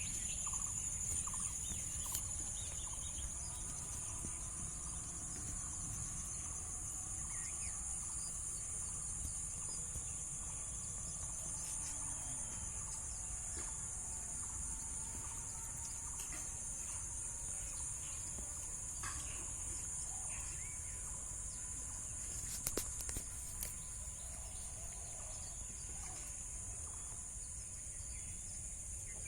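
Outdoor ambience: a steady high-pitched chorus of insects such as crickets, over a low rumble, with a few faint bird calls. A couple of sharp clicks sound about 23 seconds in.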